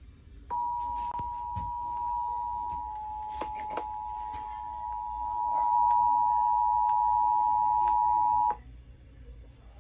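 Emergency Alert System attention signal: two steady tones sounding together for about eight seconds, growing louder partway through and cutting off suddenly near the end. It is the alert that introduces an emergency broadcast message. Faint clicks run underneath.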